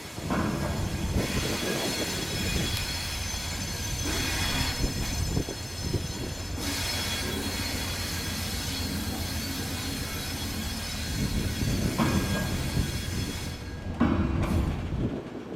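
Train rolling slowly over the tracks with a low rumble and steel wheels squealing on and off against the rails, the squeal fading near the end.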